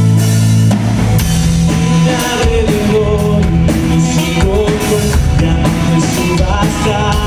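Rock-style backing music with a drum kit keeping a steady beat, held bass notes and a melodic line coming in about two seconds in.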